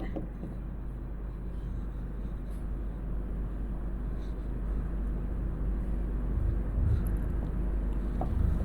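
Steady low background rumble and hum, growing slightly louder, with a few faint ticks.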